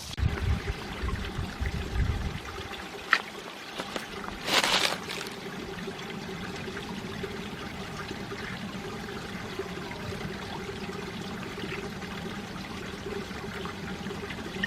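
Mountain stream water running and trickling steadily over rocks. Low thumps sound in the first two seconds, a sharp click about three seconds in, and a brief loud hiss about five seconds in.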